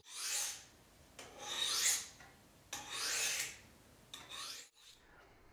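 Small kitchen knife drawn slowly down an upright honing steel to keep its edge: four metal-on-metal scraping strokes about a second apart, the last one fainter.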